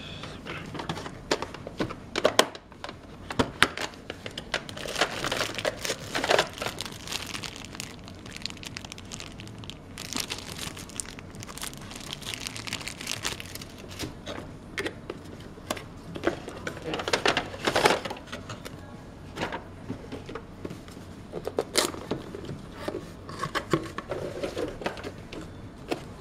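A cardboard box being handled and opened: the inner tray sliding out of its sleeve, and cardboard flaps and paper inserts rustling, scraping and tapping in irregular bursts.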